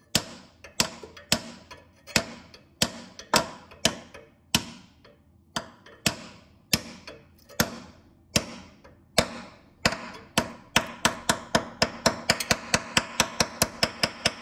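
Hammer tapping a steel freeze plug (core plug) into a VW Mk1 engine block. The metallic taps ring briefly, come about one to two a second at first, then quicken to about four a second before stopping suddenly.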